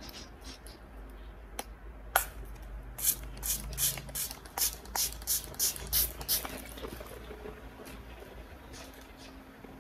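Small plastic pump spray bottle spritzing onto the hand: about a dozen quick sprays, roughly three a second, after a single click.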